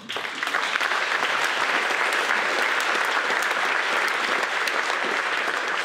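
Audience applauding: many hands clapping together, starting at once and holding at an even level.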